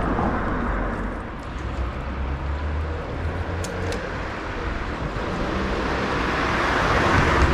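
Road traffic rumbling steadily, swelling as a vehicle passes near the end.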